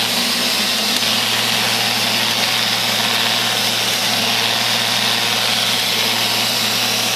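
Neato robot vacuum running: a steady motor and suction-fan hum with a strong even hiss as it cleans and drives around an obstacle.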